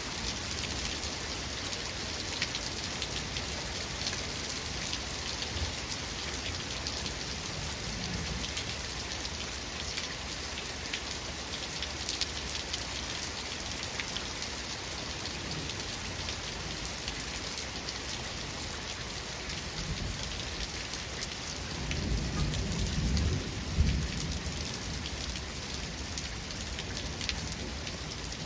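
Steady rain falling on surfaces, with fine drop ticks throughout. A low roll of thunder builds about 22 seconds in and peaks a couple of seconds later.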